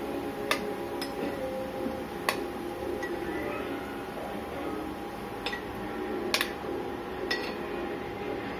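A metal spoon clinking against a paniyaram pan as cooked paniyarams are scooped out, about half a dozen sharp separate clinks, over a faint steady hum.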